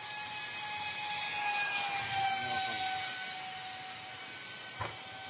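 Small electric model jet (a 1/29-scale F-16C) flying overhead: a steady motor whine with a rush of air that swells as it passes. The pitch drops slightly about two to three seconds in. A short knock comes near the end.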